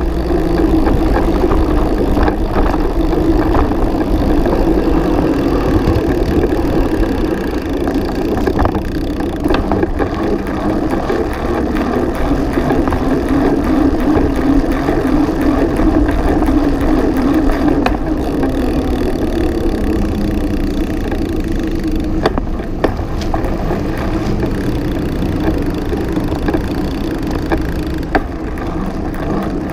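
Bicycle ridden on tarmac, heard through an action camera clamped to its frame: a steady rumble of tyres and drivetrain with frame vibration, and a few sharp knocks from bumps in the road.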